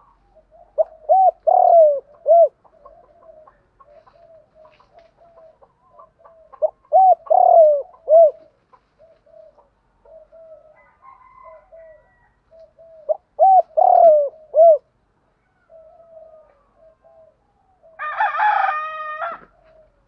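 Spotted dove cooing its song: three loud phrases about six seconds apart, with softer cooing between them. About eighteen seconds in comes a brief, harsher call with several stacked tones.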